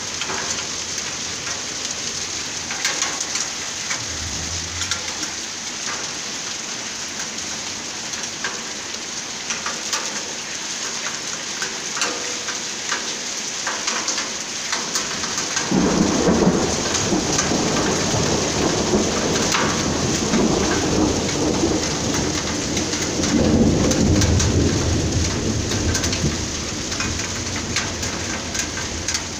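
Hail and rain pelting stone paving and a stone table in a steady patter. Thunder rumbles in about halfway through, lasting several seconds, and swells again a few seconds later.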